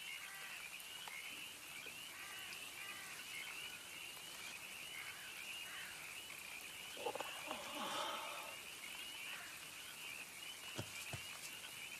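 Frogs croaking in a dense, steady chorus that sits high in pitch. A louder single call comes about seven seconds in, and two soft knocks sound near the end.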